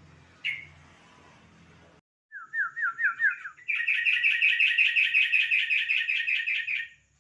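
Yellow-vented bulbul (trucuk) singing. A short run of quick rising notes opens into a loud, fast bubbling chatter of repeated notes for about three seconds, which then stops.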